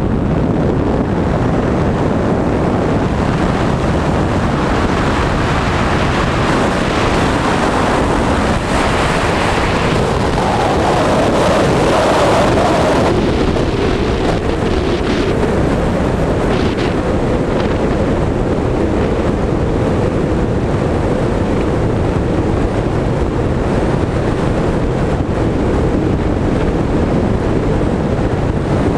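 Loud, steady rush of wind over the camera's microphone in fast wingsuit flight, swelling briefly about ten seconds in.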